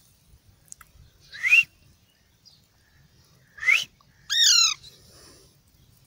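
A young Alexandrine parakeet and its owner trading whistles: two short rising whistles, then a longer call that rises and falls.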